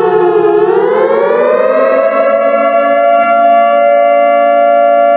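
Civil-defense-style siren wailing loudly. Its pitch dips in the first half-second, climbs over the next second and a half, then holds steady.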